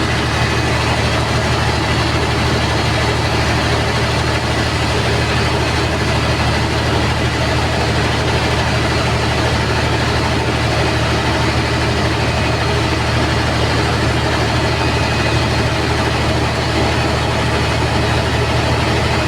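600 kVA diesel generator set, its Caterpillar C18 inline-six diesel engine running at a steady speed on a trial run, a loud constant low drone with a broad mechanical rush above it.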